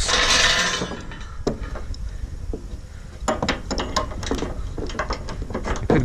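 Steel tie-down chain rattling and clinking as it is handled, with a louder rattle in the first second, then scattered sharp clinks.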